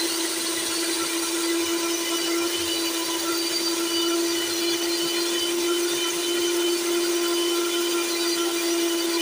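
Electric hand mixer running at a steady speed, its twin beaters whisking egg whites into a froth; the motor gives a constant hum that holds one pitch throughout.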